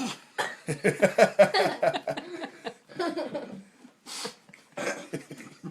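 A person laughing in quick bursts, then a short sharp breathy burst about four seconds in.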